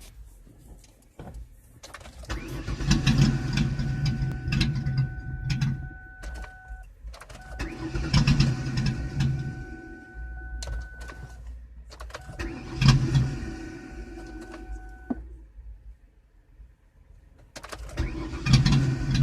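A car's starter cranking the engine in four separate tries of about three to four seconds each, with a steady high tone during each crank. The engine turns over but never catches: a no-start. The last try begins near the end.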